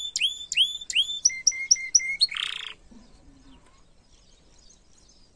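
Domestic canary singing: a fast run of repeated whistled notes, each sweeping down in pitch, then a few short level notes and a harsh buzzy note. The song stops abruptly a little under three seconds in.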